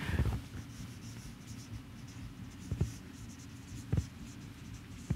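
Marker pen writing on a whiteboard: faint scratching strokes with a couple of light taps, over a low steady room hum.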